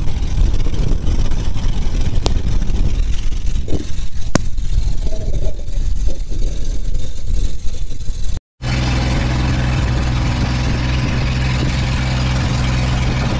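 Motorboat engine running steadily, with rumbling wind on the microphone in the first part and a few sharp clicks. After a brief dropout about two-thirds of the way through, the engine's drone is steady and even.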